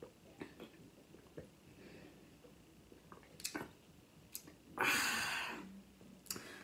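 A person gulping a drink from a bottle, with faint swallowing clicks, then about five seconds in a loud breathy exhale that fades into a short low hum.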